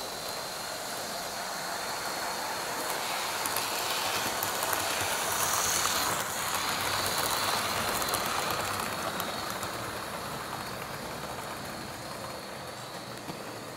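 Model electric trains running on layout track: wheels rumbling and lightly clicking over the rails with a faint motor whine. The sound grows louder as a train passes close about six seconds in, then fades away.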